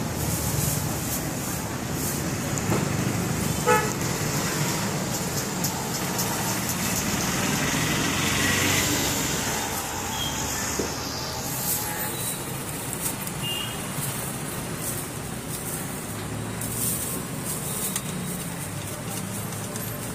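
Thin clear plastic wrapping rustling and crinkling as it is pulled off a new kids' bicycle and its wheel. Road traffic rumbles underneath, with a brief vehicle horn toot about four seconds in and another around the middle.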